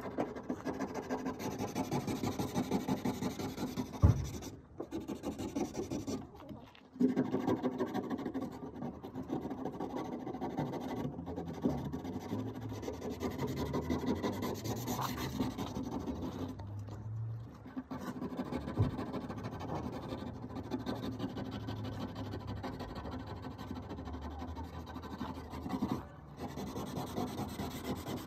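Sandpaper rubbed back and forth by hand over a rusty, pitted steel car door panel, a rasping scrape in quick rhythmic strokes with a few brief pauses. A sharp knock sounds about four seconds in.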